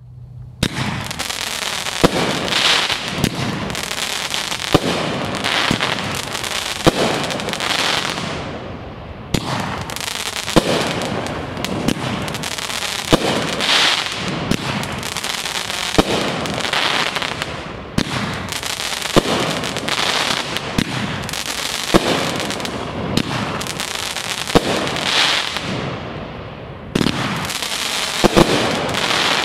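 Sunwing Pyro Safari Elephant 500-gram fireworks cake firing its shots one after another: a continuous hiss and crackle of rising tails and bursting stars, with a sharp crack every second or so.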